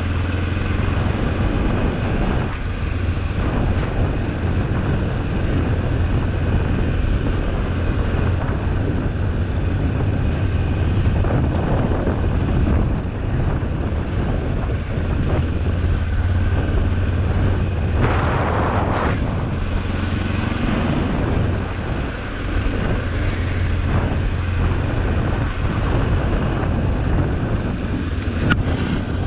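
Kawasaki KLE 400 parallel-twin engine running steadily at low, even revs, heard from on the motorcycle, with some wind on the microphone. A brief rushing hiss comes about eighteen seconds in.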